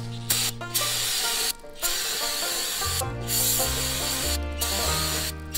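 Aerosol spray can hissing into a plastic funnel in several bursts, each a second or so long, with short breaks between them. Background music plays underneath.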